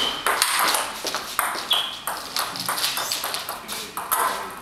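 Table tennis ball clicking off the rackets and the table again and again during a rally, with a couple of short high squeaks.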